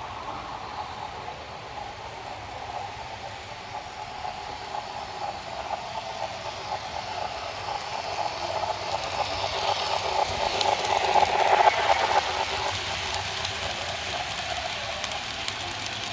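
Model steam locomotive and its freight cars rolling along the track. The running and wheel noise grows louder as the train approaches and is loudest about eleven to twelve seconds in, with fine rapid ticking as the cars roll past.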